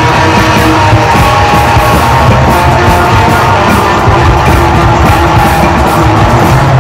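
Loud, dense electric guitar improvisation in an avant-rock, noise style, with several guitar parts layered over a steady rhythmic pulse.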